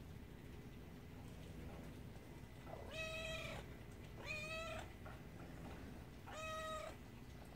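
A kitten meowing three times, short high-pitched calls of about half a second each.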